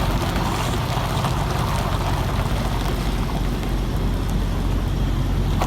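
Diesel truck engine running steadily: a low, even hum under a rushing noise.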